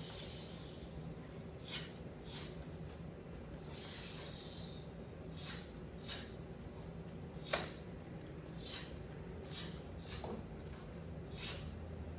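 A child performing a taekwondo pattern: a string of short, sharp sounds, about a dozen at uneven spacing, with two longer hissing breaths, one at the start and one about four seconds in. These are the sharp exhales and uniform snaps that go with each block and strike.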